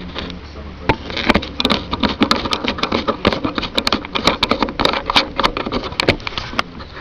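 Quick, irregular clicks and knocks of handling noise, over a low steady hum.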